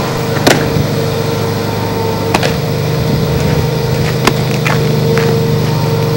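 A softball pitch smacks into the catcher's mitt about half a second in, the loudest sound, over a steady mechanical hum. A few fainter clicks follow.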